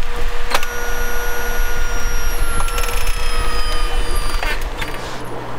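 RV automatic leveling system's jacks running with a steady whine that dips slightly in pitch as they take the trailer's weight, starting with a click about half a second in and stopping about four and a half seconds in, over a low rumble.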